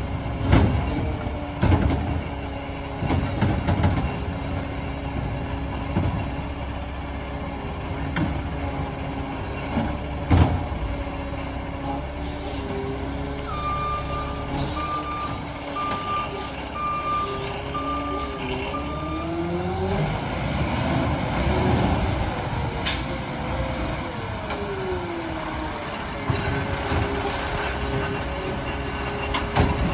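Peterbilt 520 garbage truck running, with a few sharp knocks in the first ten seconds and a row of about six reversing beeps about halfway through. Near the middle its diesel engine revs up, then settles back down.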